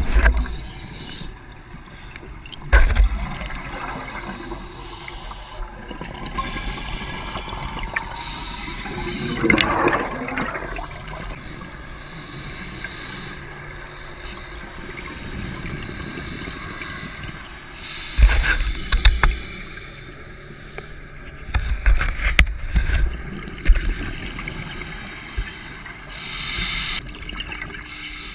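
Underwater scuba breathing: an open-circuit regulator hissing on each breath and exhaled bubbles gurgling out in bursts every few seconds, with a steady rush of water noise between them.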